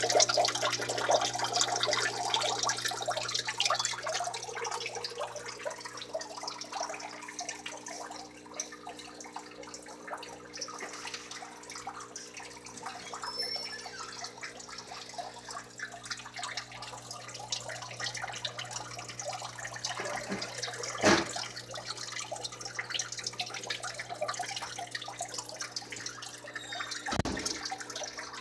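Water trickling and splashing in a reptile enclosure's rock-wall waterfall, louder in the first few seconds, over a steady low hum. Two thumps, the louder one about three-quarters of the way through, the other near the end.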